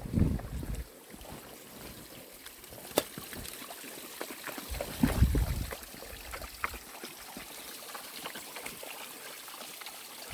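Small waterfall trickling and splashing steadily, with two low thuds near the start and about five seconds in, and a sharp click about three seconds in.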